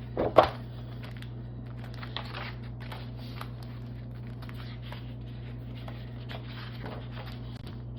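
Scrapbook paper and its packaging being handled: soft rustles and light taps, with one sharper crinkle or knock just after the start. A steady low hum runs underneath.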